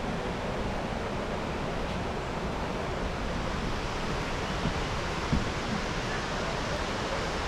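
Steady rushing outdoor noise with two faint knocks a little past halfway.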